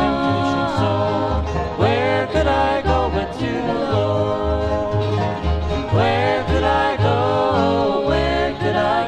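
Bluegrass band recording: banjo and acoustic guitar over an upright bass plucking about two notes a second, with a lead line that slides up and down in pitch.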